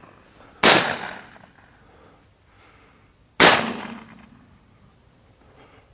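Two shotgun shots about three seconds apart, each a sharp report with a short decaying tail, fired at a flushed game bird.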